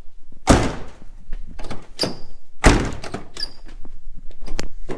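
A door being worked and shut: a series of heavy thunks and bangs, about five in all, two of them leaving a brief high metallic ring.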